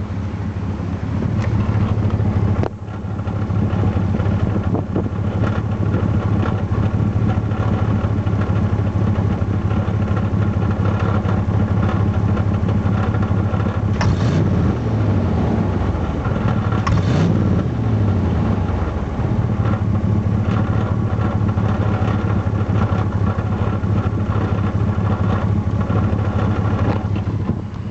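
Chevrolet Caprice engine running steadily, with two quick revs about halfway through. Each rev starts with a brief sharp noise. This is the sudden throttle at which the owner hears an unexplained knock.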